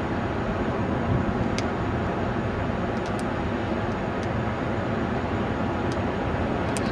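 Two Boeing CH-47 Chinook tandem-rotor military helicopters flying past, heard as a steady, dense noise of rotors and turbine engines, heaviest in the low end.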